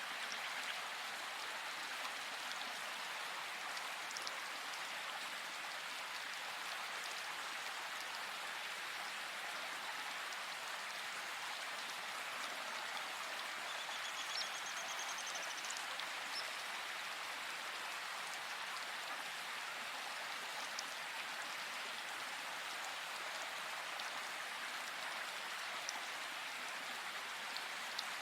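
Steady rain falling, an even hiss with scattered drop ticks. A bird gives one brief rapid, high trill about fourteen seconds in.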